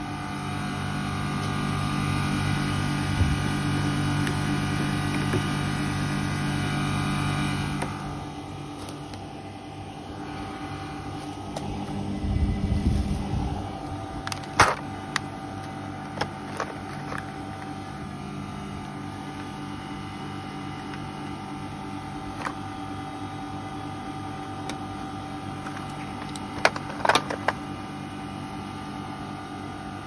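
Carrier R22 outdoor condensing unit running in cooling: a steady compressor and condenser-fan hum, loud for the first eight seconds and fainter after. A few sharp clicks of handled tools follow, around the middle and again near the end. The unit is running short of refrigerant.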